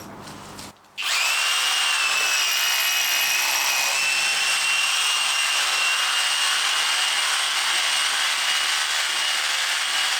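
Power drill running steadily under load, driving a ground screw into the soil. It starts about a second in, rises a little in pitch, then holds a steady high whine.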